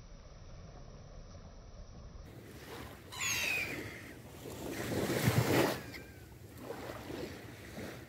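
Gulls calling over a steady hiss of sea and wind: a loud squealing call about three seconds in and a thinner falling call near six seconds, with a loud gust of wind rushing across the microphone between them. The sound changes abruptly about two seconds in, from a dull, muffled hiss to a brighter, fuller one.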